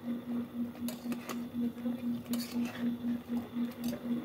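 A metal ladle clinking a few times against an aluminium cooking pot as chicken adobo is stirred, over a steady low hum that pulses about five times a second.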